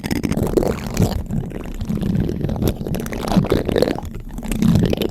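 Spoon scraping and rubbing directly on a microphone, heard as dense, irregular low rumbling scrapes with occasional clicks.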